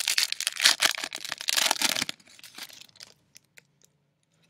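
Foil trading-card pack wrapper being torn open and crinkled for about two seconds, followed by a few faint ticks and rustles.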